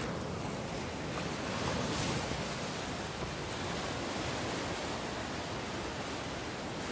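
Fast, turbulent river rushing over rocks: a steady wash of water noise.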